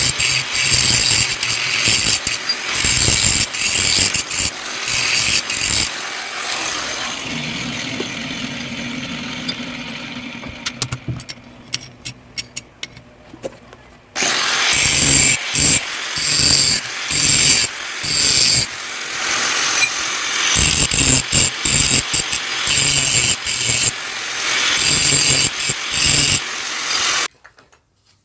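Electric grinder working the steel of an axe head in repeated bursts. About 6 s in it runs on lightly and fades as the motor winds down. About 14 s in it starts again, cuts in and out against the metal, and stops abruptly just before the end.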